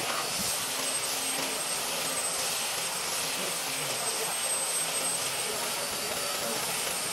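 Corded handheld power tool running steadily as it is pushed over the face of a large wooden slab to smooth it: an even rushing noise with a thin high motor whine.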